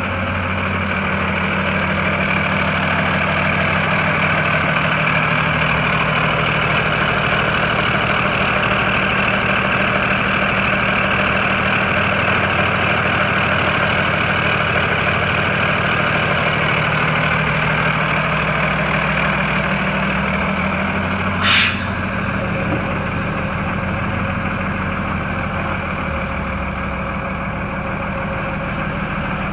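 Freightliner M2 106 dump truck's Cummins diesel engine idling steadily. About three-quarters of the way through, the truck's air system lets out one short, sharp hiss of air.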